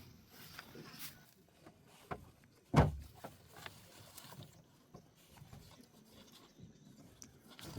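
Quiet background with a few scattered light clicks and one sharp knock a little under three seconds in.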